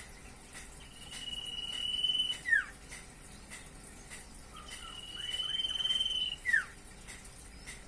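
Common iora (cipoh) singing: twice, a long steady high whistle that swells in loudness for about a second and a half, then ends in a short, sharp note sliding downward.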